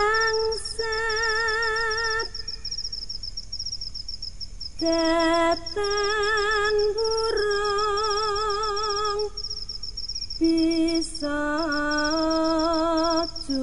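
A solo voice singing slow, drawn-out notes with a wide vibrato, in phrases broken by pauses of one to two seconds. A steady high chirping runs underneath.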